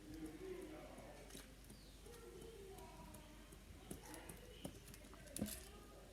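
Faint, scattered plastic clicks and knocks of a 3x3x1 puzzle cube being turned by hand during a solve, a few sharper ones late on.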